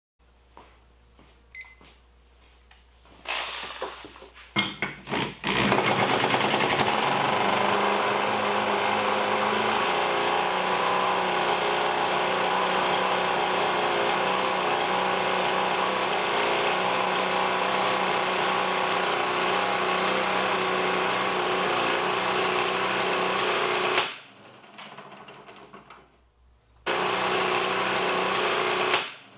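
Small single-cylinder vertical-shaft mower engine, cut open and running with no oil in its crankcase, starts about five seconds in and runs fast with a steady mechanical clatter. It cuts off abruptly about 24 seconds in, runs again briefly, and stops suddenly near the end as the oil-starved engine fails and throws its connecting rod.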